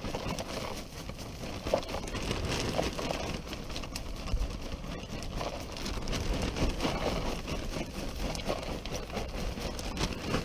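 Shredded wood mulch pouring out of a plastic bag onto the ground as a steady scatter of small irregular ticks, with the bag crinkling in the hand.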